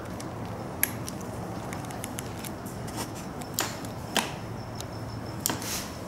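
A few scattered light clicks and taps from handling the ATV's handlebar clutch lever and its cable adjuster.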